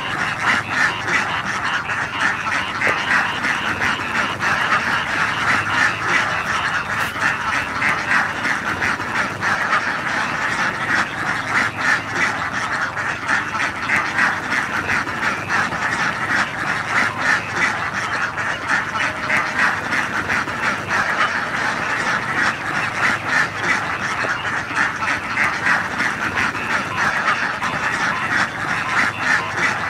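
A large flock of domestic ducks quacking all at once, a dense, continuous chorus of overlapping quacks with no pause.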